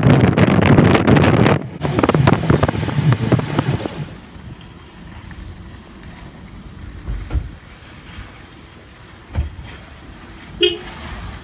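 Wind buffeting the microphone of a phone in a moving car, loud and rough, for about four seconds; it then gives way to a quiet outdoor background broken by a few short low thumps.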